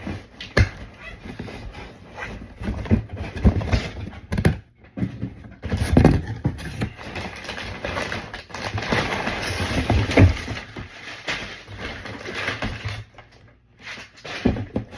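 Cardboard box and paper packaging being opened and handled: rustling, tearing and scraping, with repeated knocks and clicks. The rustling is densest through the middle of the stretch.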